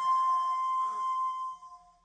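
Daegeum (Korean bamboo transverse flute) holding a long, bright high note that fades out about a second and a half in, ending the phrase.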